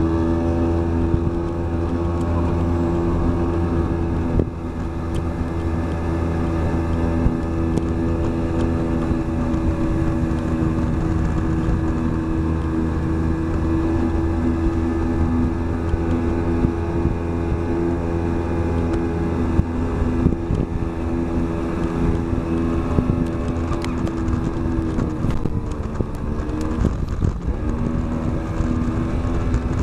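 Yamaha 30 hp outboard motor on a 12-foot aluminum boat running at speed with a steady drone, over wind on the microphone and the rush of the wake. Near the end the engine note dips briefly and then comes back up.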